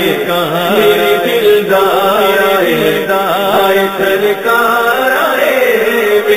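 Male voices singing an Urdu naat in long, drawn-out gliding phrases without clear words, over a steady low drone.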